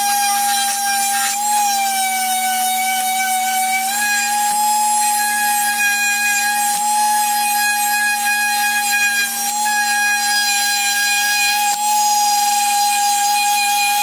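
Electric palm sander running steadily while sanding a wooden board, a steady motor whine over a lower hum. Its pitch dips slightly for a couple of seconds about two seconds in, then holds steady.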